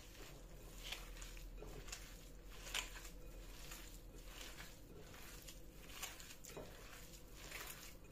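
Hand kneading raw ground beef mixed with egg and breadcrumbs in a glass bowl: faint, irregular wet squishing strokes.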